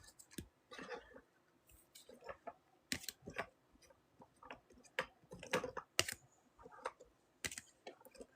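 Trading cards being handled and stacked on a table: scattered light clicks and taps with soft rustling, at irregular intervals.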